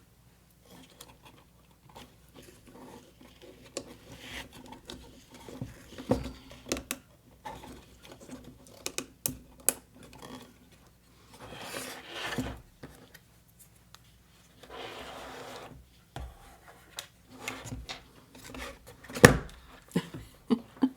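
Small wooden kit parts being handled and fitted together: scattered clicks and taps, with two longer stretches of rustling in the middle and one sharp knock near the end.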